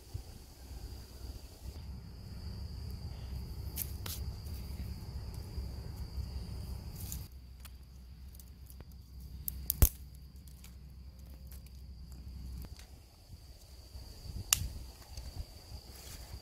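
A steady, high-pitched insect drone, with a low rumble underneath and a few sharp clicks, the loudest about ten seconds in.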